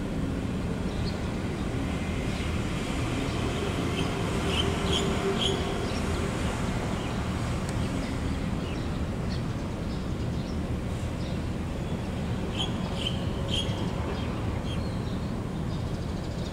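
Steady low rumble of background noise. Short high bird chirps come in two brief clusters, about five seconds in and again about thirteen seconds in.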